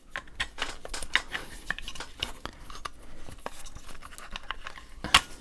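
Irregular small clicks and rattles of an airsoft rifle's parts being handled and adjusted, with one sharper click near the end.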